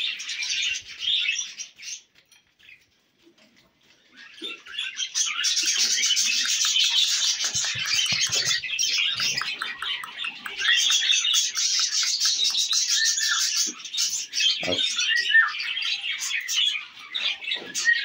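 Cockatiels chirping and chattering in a dense, rapid stream of high calls, which stops for about two seconds near the start and then runs on.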